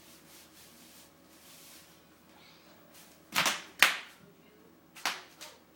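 Bubble wrap popping under a toddler's feet: four sharp pops, two close together about three and a half seconds in and two fainter ones about a second and a half later.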